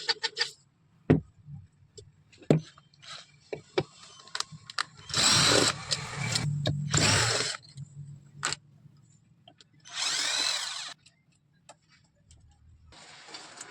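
A handheld power tool running in short bursts of about a second each, with scattered clicks and knocks of handling parts in between.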